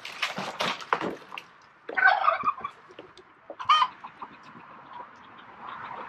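A chicken calls twice, a squawking cluck about two seconds in and a shorter one near four seconds. The calls follow a second of sharp crackling and snapping at the start.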